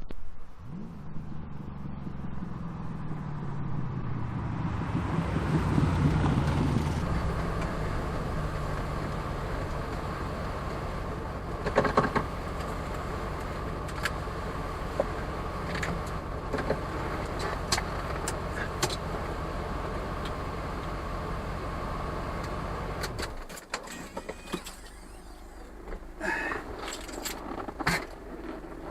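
Lamborghini Countach replica's engine pulling away, rising in pitch and getting louder over the first few seconds, then running steadily at speed. It cuts off abruptly about 23 seconds in, leaving a quieter stretch with scattered clicks.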